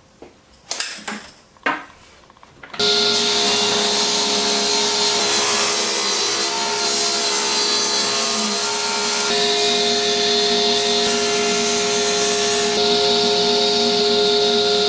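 A few light knocks, then about three seconds in a power saw starts cutting a strip of maple. It runs loud and steady with a constant whine.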